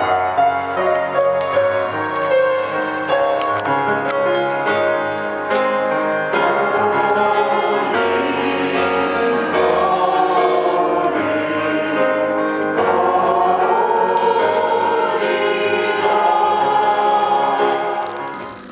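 Choir singing a hymn in held, sustained notes. The sound dips briefly near the end.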